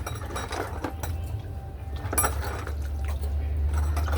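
Metal parts clinking and clattering as they are handled, with a few sharp knocks, over a steady low hum.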